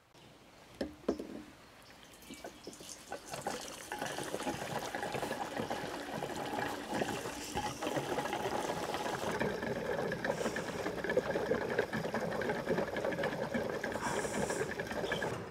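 Gasoline pouring from a red plastic gas can into a mower's plastic fuel tank, a few light knocks first, then the pour building over a couple of seconds into a steady flow that runs until near the end.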